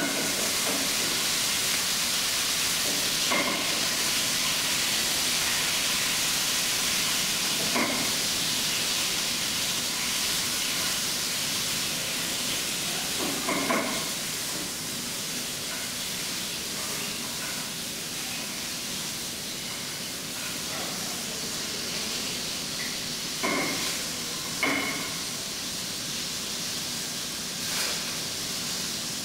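Chicken breast searing in hot olive oil in a frying pan: a steady sizzle that eases slightly over the second half. A few short clinks of metal tongs against the pan come through it.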